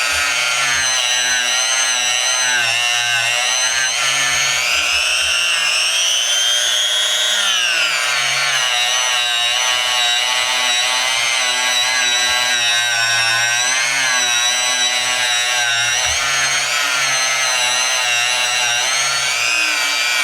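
Small high-speed power tool running continuously against metal, its whine wavering in pitch and climbing then dropping back about seven seconds in as the load changes, while the screwdriver's metal is cleaned.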